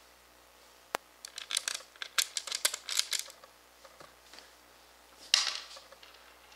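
Small metal screws and washers clicking and rattling against acrylic plates as they are handled and fitted: a sharp click about a second in, then a quick run of clicks and rattles for about two seconds, and a short scrape a little past five seconds.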